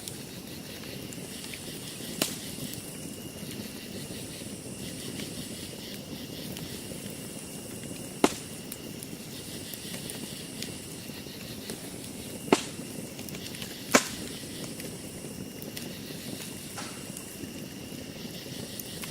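Campfire burning with a steady low crackle, and four sharp pops from the burning wood, one about two seconds in, one near the middle and two close together later on.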